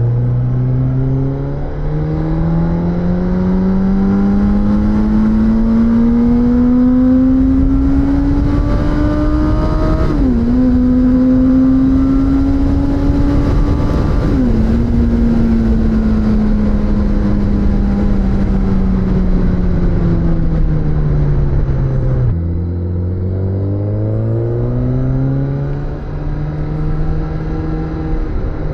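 Suzuki GSX-S1000 inline-four engine pulling hard through the gears, its pitch climbing and dropping at two upshifts about ten and fourteen seconds in. Then the revs fall slowly as the bike slows, change abruptly a few seconds before the end and climb again, with wind rush over the microphone at speed.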